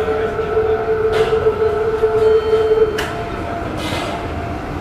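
A Meitetsu limited express train's horn holds one long steady note, which stops about three seconds in. Under it runs the steady running noise of the train, with a few sharp clacks.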